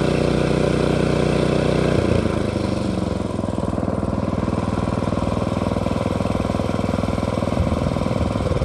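An engine running steadily, then dropping to a lower, pulsing idle about two seconds in.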